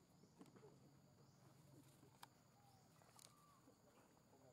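Near silence: faint outdoor ambience with a few soft clicks and a couple of faint, short chirps.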